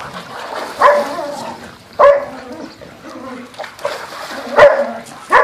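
A dog barking, four sharp barks at uneven spacing, over water splashing as dogs wade in a backyard spa.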